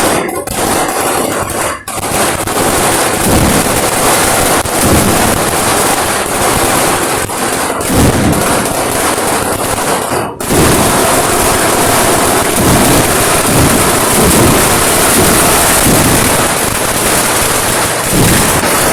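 Kerala temple-festival style fireworks barrage (vedikettu): a dense, continuous volley of overlapping firecracker bangs, briefly dropping out twice.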